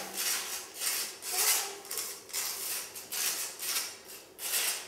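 Repeated scraping strokes against a rough, crumbling plaster wall, about two a second, each short and gritty.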